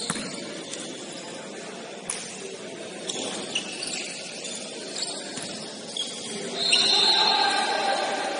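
Basketball game sounds in a gym hall: the ball knocking on the court about once a second and short high sneaker squeaks, then a louder, longer high squeal about seven seconds in that fades out.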